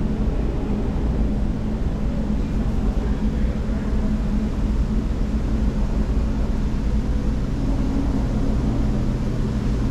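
Steady low mechanical hum made up of a few fixed low tones over a faint even hiss.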